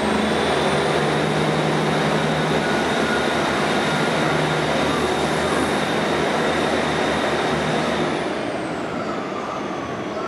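Class 158 diesel multiple unit pulling out and accelerating away under power: a steady diesel engine note with a high whine over it. About eight seconds in, the sound eases off and the whine drops in pitch as the train draws away.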